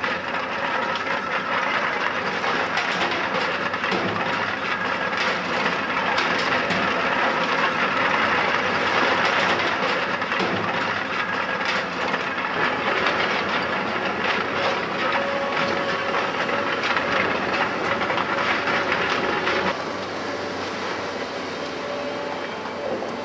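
Heavy demolition machinery running with dense, irregular clattering and knocking. About twenty seconds in it drops to a quieter, steadier engine noise with a faint steady tone.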